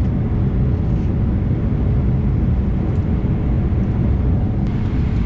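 Airliner cabin noise in flight: a steady, loud, low rumble of the jet engines and rushing airflow with a faint steady hum.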